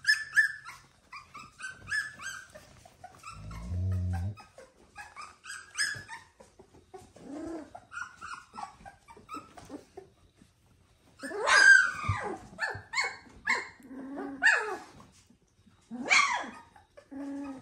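Dogs whining and squealing: many short high-pitched squeaks and whimpers, a short low growl about four seconds in, and louder falling whines about twelve seconds in and again near the end.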